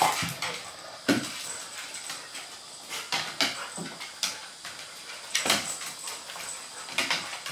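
A Maltese and a golden retriever playing on a hardwood floor: irregular clicks, scrapes and knocks of their paws and claws as they scuffle.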